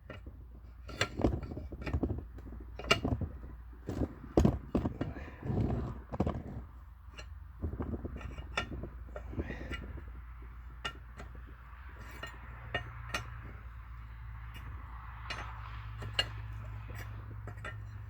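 Irregular sharp metal clinks and knocks of a wrench working a broken stud out of a John Deere clutch, the loudest in the first six seconds and sparser after. A steady low hum runs underneath.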